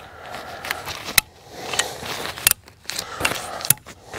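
Cliq folding camp chair being pulled out and opened by hand: fabric rustling, with several sharp clicks and knocks from its frame.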